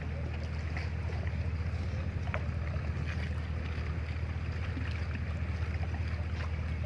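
A small boat's engine running steadily with a low, fast throb.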